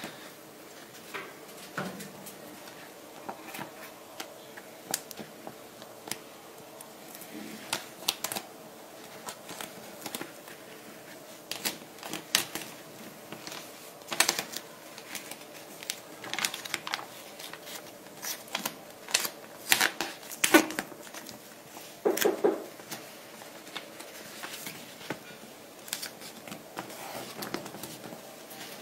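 Hands handling cold laminating film and a printed sheet at the laminating machine's roller: irregular clicks, taps and crinkles of plastic film and paper, with a few louder knocks about two-thirds of the way through.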